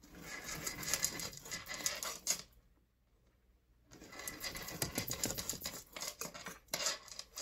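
Rapid, dry scratching and crackling of a fresh, unpeeled ginger root being split into pieces by hand. It comes in two stretches, with a silent gap of about a second and a half in the middle.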